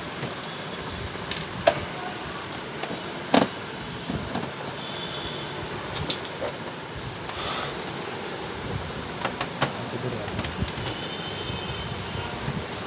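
Scattered sharp clicks and knocks of a screwdriver and hands on an Epson L130 inkjet printer's plastic casing as it is unscrewed and lifted off, over steady background noise.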